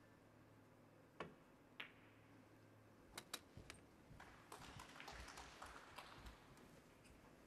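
Snooker cue tip striking the cue ball, then sharp clicks of ball on ball. A few seconds later come more ball clicks and a spell of faint patter.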